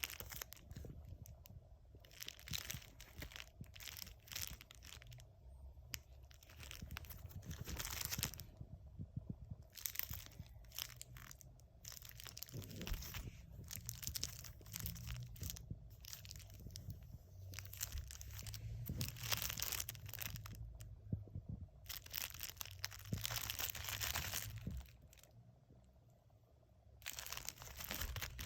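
Crinkling and rustling of wrapped packaging being handled, in irregular bursts, likely cellophane- or paper-wrapped vintage firework packs being picked up and turned over.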